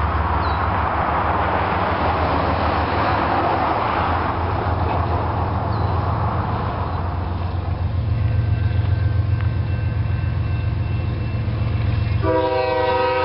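Approaching CSX freight train led by GE ES40DC diesel locomotives, their engines droning steadily under a rumble. About a second before the end, the lead locomotive's multi-chime air horn begins to sound.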